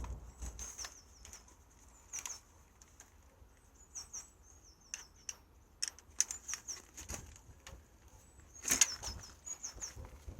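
Small birds chirping and twittering in a quick, continuous run of high notes, with scattered clanks and knocks of tools and parts being moved about, loudest a few seconds before the end.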